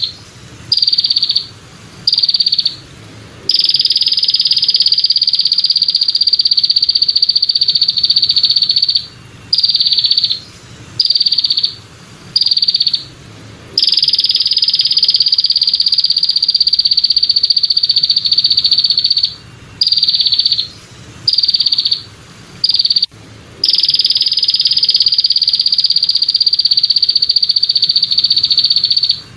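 Belalang kecek katydid stridulating with a high, dry buzz. Runs of short buzzes with brief gaps lead into long unbroken buzzes of about five to six seconds, three times over.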